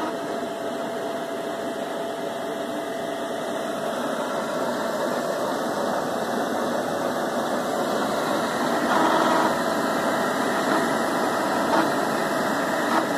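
FlashForge Inventor 3D printer running: a steady whir of its cooling fans and motors, with a brief change in pitch about nine seconds in as the mechanism moves.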